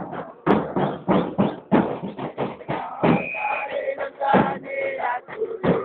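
Football supporters' band of bass drums beating a steady rhythm while the crowd chants along.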